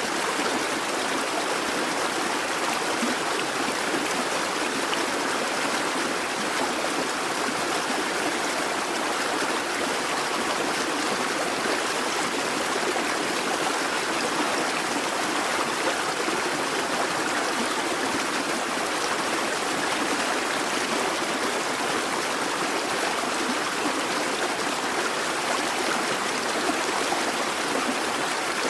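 A busy babbling brook: water running steadily and evenly over stones, with a constant trickling and gurgling.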